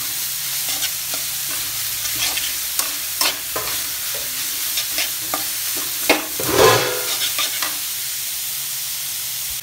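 Cabbage, capsicum and spring onions being stir-fried in hot oil in a pan, sizzling steadily. A spatula scrapes and knocks against the pan now and then, loudest about six seconds in.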